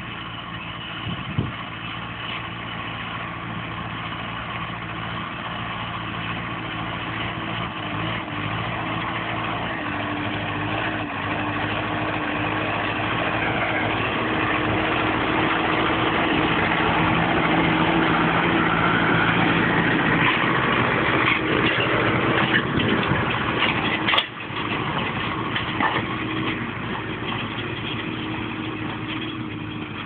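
Zetor tractor's diesel engine running steadily under load as it pulls a three-furrow Kverneland plough. It grows louder as the tractor comes close and passes, then eases off. There is one sharp click about three quarters of the way through.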